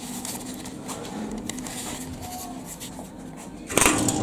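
Rustling and rubbing of a handheld camera being moved, over a faint steady hum. A louder brief scrape comes near the end.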